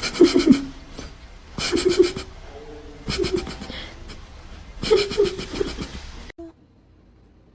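A person laughing in four bursts of quick pulses, which stops abruptly about six seconds in.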